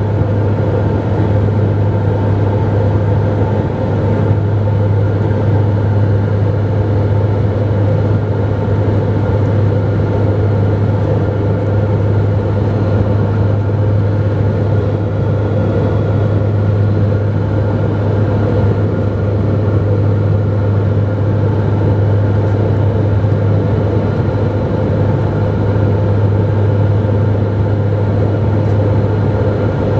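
Propeller-driven commuter airliner's engines heard from inside the cabin in flight: a steady, loud drone with a strong low hum and fainter higher tones, unchanging throughout.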